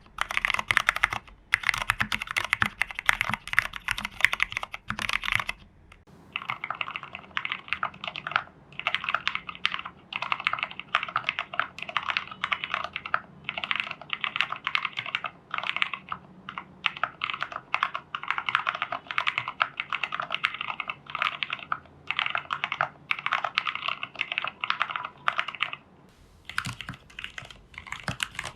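Steady typing on a plateless TU40 mechanical keyboard in a plastic case, dampened with case foam, PCB foam and a tape mod, fitted with Cherry Hyperglide Black linear switches: a rapid run of keystroke clacks. The typing breaks off briefly about six seconds in and again near the end.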